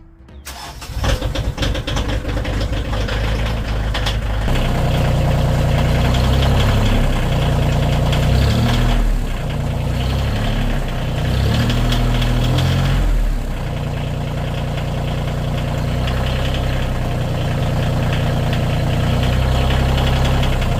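Kioti CX2510 compact tractor's three-cylinder diesel engine starting about a second in, then running, its speed dropping and picking back up a few times as the tractor is put under load in reverse. The loaded rear wheel's rim is spinning inside the tire, the bead broken loose.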